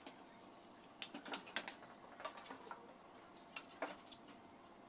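A few light, sharp clicks and taps: a quick run of them about a second in, another in the middle, and a pair near the end.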